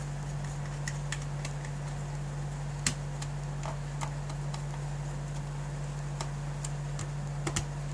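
Scattered small clicks and taps of a screwdriver and hands working on a laptop's plastic case while it is being closed up. The sharpest click comes about three seconds in and a quick pair near the end, over a steady low hum.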